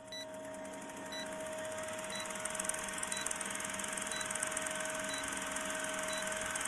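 Old film-projector countdown effect: a fast, steady projector clatter over a hum, with a short high beep once a second as the leader counts down. It fades in over the first second.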